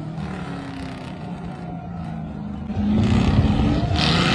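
Off-road 4x4's engine pulling hard up a steep dirt hill, revving up and getting louder about three seconds in. A rush of higher noise joins near the end.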